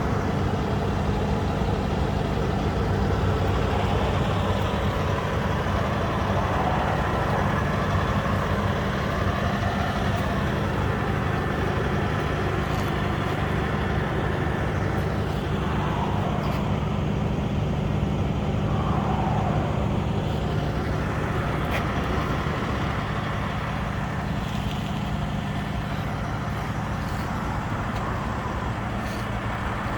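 A large engine running at a steady speed, a constant low hum, with road traffic noise around it; something passes by around the middle, its pitch falling.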